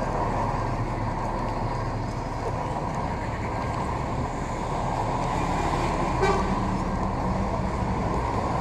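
Steady outdoor street traffic noise of cars, with a short horn-like sound about six seconds in.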